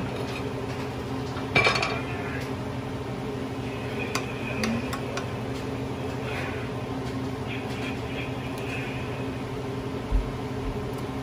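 Dishes and cutlery clinking now and then over a steady low hum, with a few sharp clicks about a second and a half in, around four seconds, and near the end.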